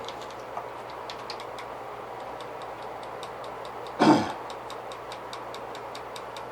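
A small bottle of airbrush paint being shaken to mix it, giving an even clicking rattle about four to five times a second, with one louder thump about four seconds in.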